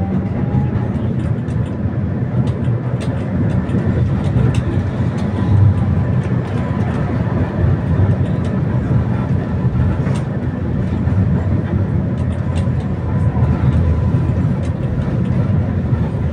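Tram running along the line, heard from inside the passenger car: a steady low rumble with scattered light clicks and rattles.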